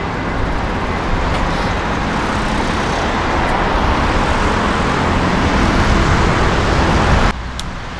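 Steady road traffic noise that grows louder toward the end and cuts off suddenly about seven seconds in.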